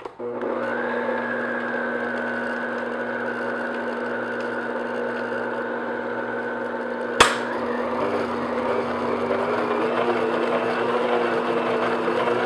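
Electric stand mixer's motor running steadily as its flat beater beats the last of the flour into a thick cake batter in a glass bowl. A sharp click comes about seven seconds in, after which the motor's hum turns rougher and less even.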